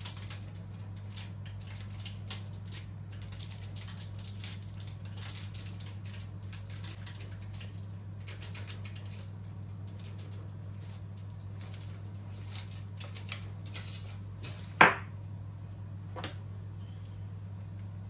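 Knife tapping repeatedly on a cutting board, irregular short ticks of bread being cut into squares, over a steady low hum. About 15 seconds in comes one much louder knock, then a smaller one a second later.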